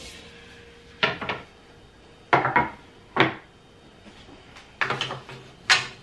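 Wooden cutting boards and wooden spoons being set down and stacked, knocking against each other in several sharp wooden clacks that come in small groups.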